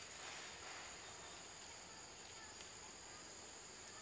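Faint, steady, high-pitched drone of forest insects such as crickets or cicadas, with a brief soft rustle near the start.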